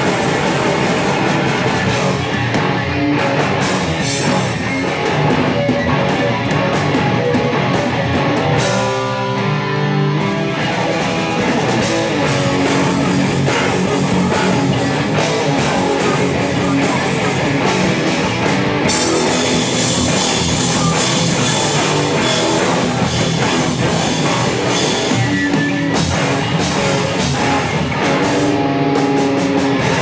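Live rock band playing loud, with distorted electric guitars over a drum kit. About nine seconds in the cymbals drop out for a moment before the full band comes back.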